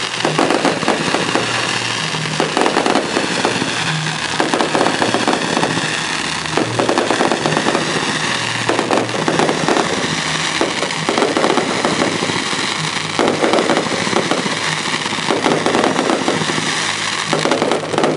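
Aerial fireworks going off in a dense, continuous barrage of bangs and crackle, with heavier surges every second or two.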